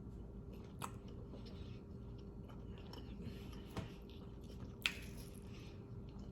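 A person chewing food close to the microphone, with soft wet mouth sounds and three sharp smacks at about one second, four seconds and five seconds in, over a faint steady hum.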